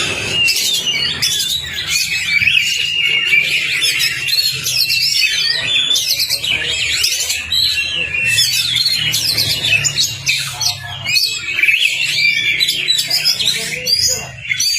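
Oriental magpie-robin (kacer) singing without pause: a fast, dense stream of varied high chirps, whistles and trills, the agitated 'ngobra' song that keepers play as a lure to set other magpie-robins singing.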